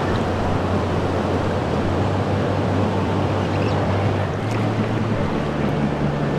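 Steady rushing of river water around the raft.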